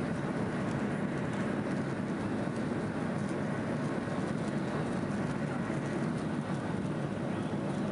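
Boeing 737 jet engines at takeoff thrust heard from inside the cabin, a steady loud roar with the rumble of the wheels on the runway during the takeoff roll.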